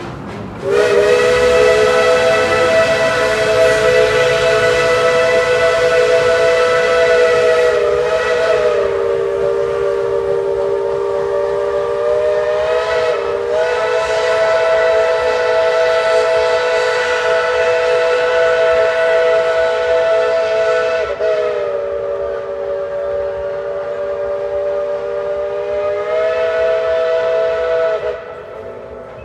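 Steam locomotive No. 12's chime whistle blowing one long, loud chord of several tones. It starts about a second in and is held almost throughout, with a few brief dips and wavers in pitch as the valve is eased. It cuts off near the end.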